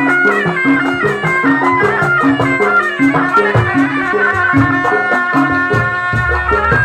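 Traditional ensemble music: a reedy wind instrument plays a winding, ornamented melody over a steady, repeating drum and gong beat.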